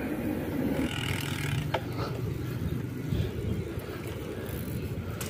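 Wind rushing over the microphone and tyre noise on wet asphalt from a bicycle rolling along, a steady low rumble with one short click a little under two seconds in.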